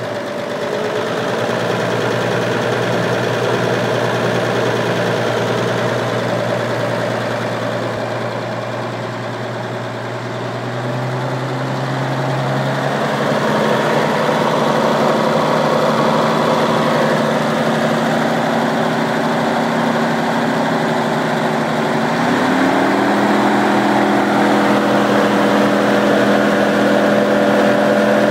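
GMC CCKW truck's straight-six engine idling steadily. Its speed picks up a little about two-thirds of the way through and holds there.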